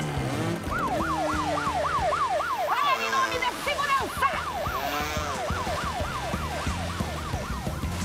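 Cartoon boat siren wailing, its pitch sweeping quickly up and down nearly three times a second. It starts just after the beginning and cuts out near the end.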